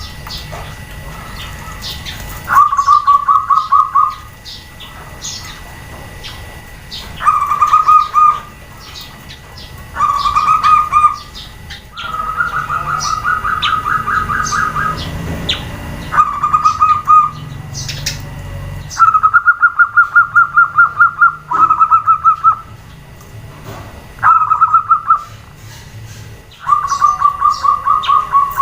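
Zebra doves (perkutut) cooing back and forth: about nine phrases of rapid staccato notes, each a second or two long, one bird answering another. Short high chirps of smaller birds come between the phrases.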